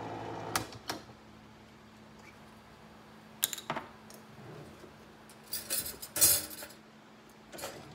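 Electric can opener motor running on a tin can and cutting off with a click a little over half a second in. It is followed by scattered metal clinks and knocks from the opened can and its lid being handled and set down, the loudest about six seconds in.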